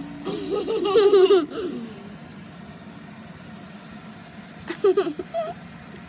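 A person giggling in two short bursts: a longer, louder one about a second in and a brief one near five seconds in.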